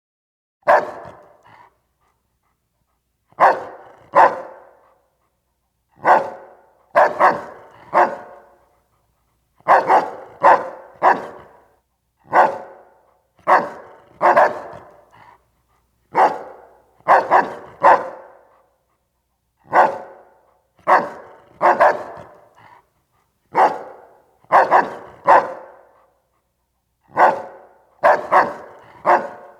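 Doberman puppy barking: sharp barks, singly or two or three in quick succession, repeating every second or two with dead silence between them.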